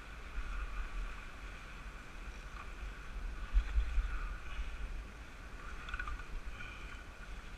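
Wind buffeting the microphone in a low, uneven rumble, over the wash of sea waves breaking against jetty rocks.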